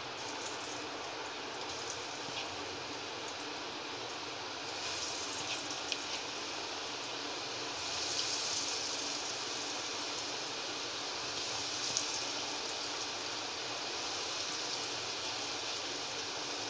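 Cornflour-coated potato sticks deep-frying in hot oil in a steel kadai: a steady sizzle that grows brighter as more sticks are dropped in, with a couple of light clicks.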